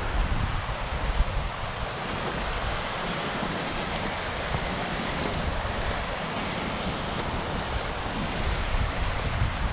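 Strong mountain wind rushing steadily, buffeting the microphone with uneven low rumbling gusts.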